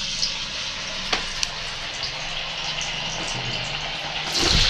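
Sabudana cutlets deep-frying in hot oil in a kadhai: a steady sizzle with a few sharp crackles, louder near the end.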